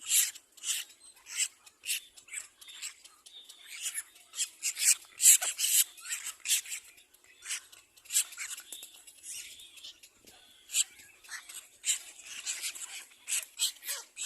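Little black cormorant chicks giving rapid, high-pitched begging calls, several short calls a second, while competing to be fed.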